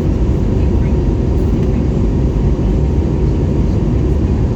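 Airbus A321neo cabin noise heard from a seat over the wing: a steady low roar of the engines and airflow as the airliner climbs after takeoff, with a faint steady tone above it.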